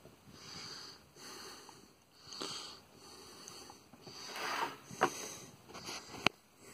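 A person breathing in and out through the nose close to the microphone, a series of soft breaths, with two sharp clicks in the last two seconds, the second one the loudest.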